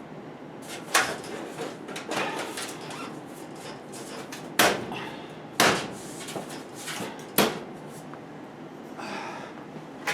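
Sharp knocks and clanks from work on sheet-metal furnace heat duct, with quieter handling noise between. Four loud knocks come at uneven spacing, about one to three seconds apart.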